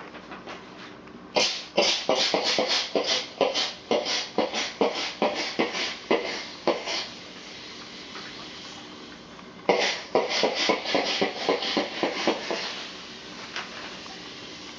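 Steam iron puffing out steam in quick hissing spurts, about three or four a second, in two runs of several seconds with a pause between.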